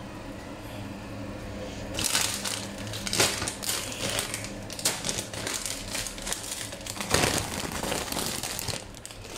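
Plastic bag of frozen minestrone vegetable mix crinkling as it is handled, starting about two seconds in with dense crackles and sharp crinkles that run on for several seconds.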